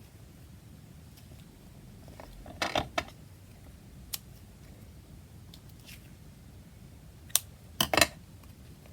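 Paper tags and small craft tools being handled on a tabletop: a few short rustles and clicks, the loudest pair near the end.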